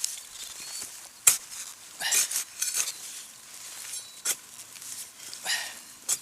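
Digging into soil for a metal-detector target: short gritty scrapes of a digging tool through dirt and a few sharp clicks.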